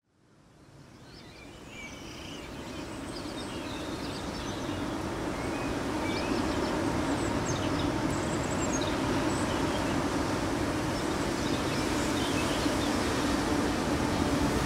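Outdoor countryside ambience: a steady wash of noise with small birds chirping now and then. It fades in from silence over the first few seconds.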